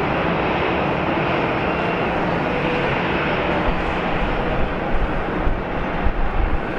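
Steady, loud jet aircraft noise across an airfield, a rushing hiss without distinct beats. From about two-thirds of the way in, low gusts of wind buffeting the microphone build up under it.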